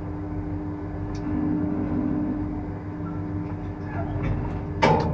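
Tower crane machinery running, heard from up in the crane, a steady low drone with a held whine while the concrete bucket is moved. A sharp knock near the end.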